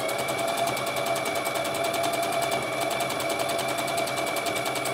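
Electric domestic sewing machine stitching forward at a steady speed: a fast, even needle rhythm over a constant motor hum.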